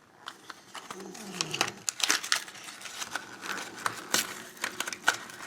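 Plastic blind-bag packaging crinkling and crackling in the hands, with irregular sharp crackles.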